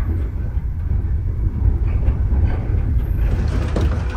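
Passenger train running, heard from inside a sleeper carriage: a steady heavy rumble with faint knocks and rattles.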